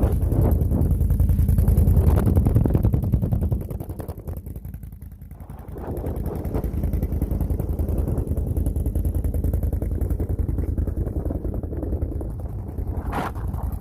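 A small vehicle's engine running under a rider, with wind buffeting the microphone as a heavy low rumble. The sound eases off for a couple of seconds about four seconds in, then picks back up.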